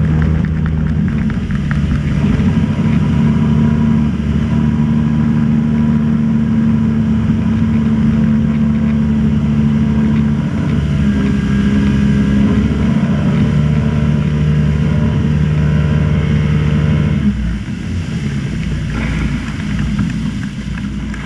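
Motorboat engine running at a steady speed, its note dropping away about seventeen seconds in.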